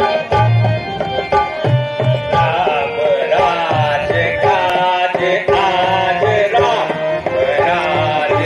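Indian music with tabla drumming: deep drum strokes at uneven intervals under a melody that bends and wavers in pitch.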